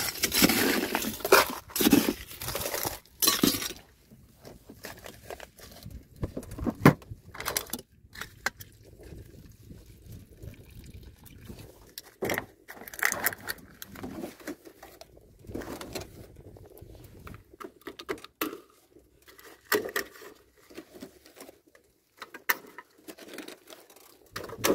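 Plastic lids being pressed onto filled plastic drink cups and the cups handled on a metal cart counter: a run of plastic clicks, clatter and rustles, busiest in the first few seconds.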